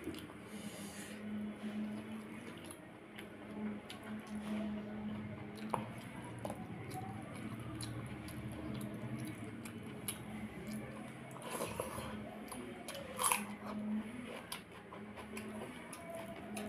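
Close-up eating by hand: fingers squishing through curd-soaked water rice and fried vegetables, with chewing and crunching as irregular small clicks and crackles. A faint steady low hum runs underneath.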